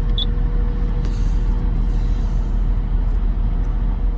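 Komatsu PC800 excavator's diesel engine running steadily, heard from the cab, with one short high beep from a monitor-panel button press just after the start.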